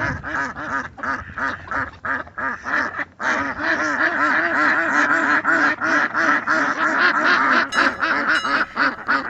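A flock of ducks quacking in rapid, overlapping calls. The calls thin out briefly about three seconds in, then come back denser and louder.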